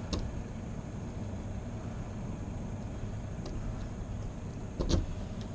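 Pick and tension wrench working a pin tumbler lock by single-pin picking: a few sharp clicks, the loudest near the end, over a steady low rumble.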